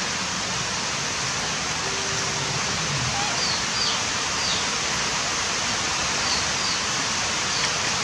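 Steady rushing sound of running water, even and unbroken, with a few faint short high chirps over it in the middle and near the end.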